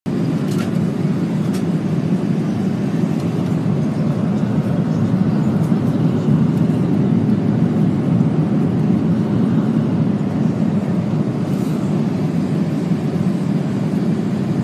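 Airliner cabin noise in flight: a steady, loud rush of engine and airflow noise, heaviest in the low range, with a few faint clicks.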